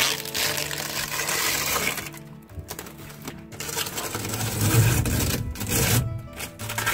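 Background music with a steady beat over the rustling and handling noise of a plastic-sleeved LED strip light being handled.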